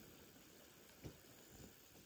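Near silence: faint outdoor ambience, with one soft low thump about a second in.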